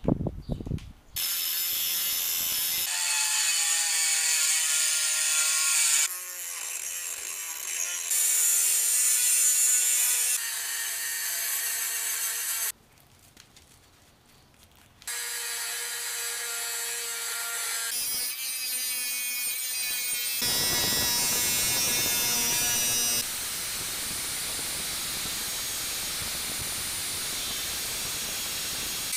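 A quick series of power-tool clips cut one after another: a power drill whining as it drills, and an angle grinder cutting a steel frame tube. Each segment stops abruptly, and there is one short near-silent gap near the middle.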